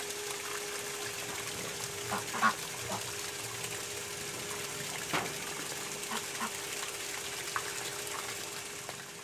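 A jet of water from a small battery-powered pump's hose splashes steadily into a pond, over a steady faint hum. A few short calls sound in the background now and then.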